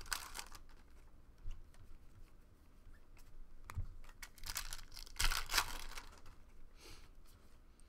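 Foil trading-card pack crinkling as it is torn open, then the cards being handled and slid through the hands, with a second burst of crinkling about five seconds in and quieter handling between.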